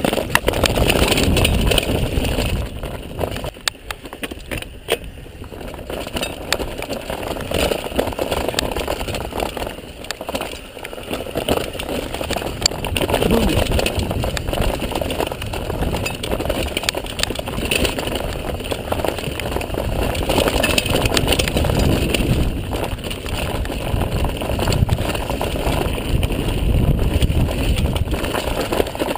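Mountain bike riding fast down a dirt singletrack: tyres rolling over dirt and roots, with frequent clicks and rattles from the bike over bumps and a low rumble of wind buffeting the microphone that swells and fades.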